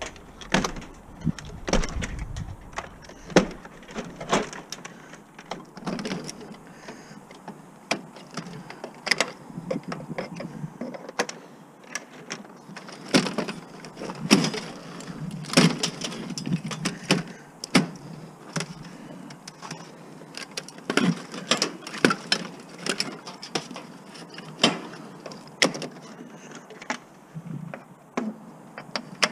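Irregular clanks, clicks and knocks of a stove being stripped by hand for scrap, its sheet metal and parts handled as the wiring is pulled out.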